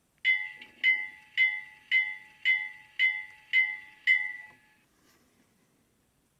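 Model locomotive's sound system ringing its bell: eight even strikes about two a second over a faint steady tone, then dying away.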